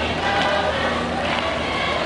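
Many voices of a marching group singing together in the open street, with a low steady hum underneath.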